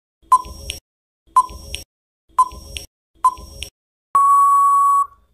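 Quiz countdown timer sound effect: four short beeps about a second apart, then one long steady beep lasting about a second as the time runs out.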